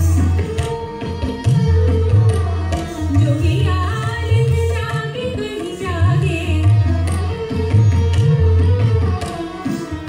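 Hindustani classical music for Kathak dance: tabla played in a steady rhythm with deep, ringing bass-drum strokes, under a singing voice and a held drone.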